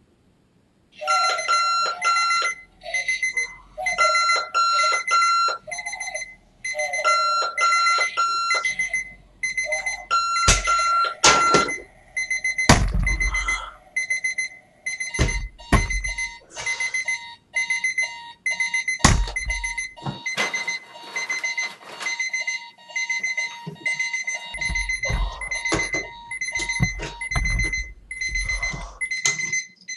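Electronic alarm clock beeping fast, first in short bursts and then almost without a break, with a few heavy thumps partway through.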